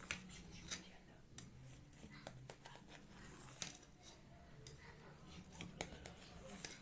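Faint, scattered clicks and light scrapes of a knife against the baking pan while pieces of basbousa are cut and lifted.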